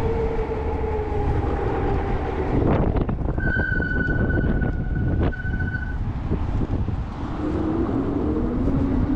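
E-bike ride with steady wind and road rumble. The hub motor's whine falls, then a steady high-pitched disc-brake squeal holds for about two and a half seconds in the middle, and near the end the motor whine rises again. The brakes are squealing badly, before any anti-squeal paste has been applied.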